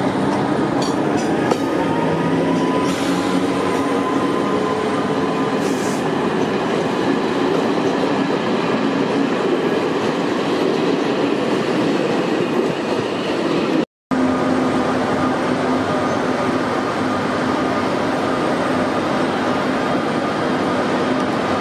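SNCF BB 17016 electric locomotive hauling a train of stainless-steel coaches: the locomotive's steady hum over the running noise of wheels on rails, with a few clicks in the first seconds. The sound cuts out suddenly for a moment about two-thirds of the way through, then the locomotive's steady hum carries on as it runs slowly.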